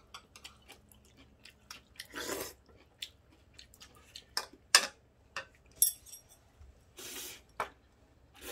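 Close chewing and mouth sounds of people eating ramen with stir-fried wild greens: many small wet clicks, two half-second swishes about two and seven seconds in, and a brief light ringing clink near six seconds.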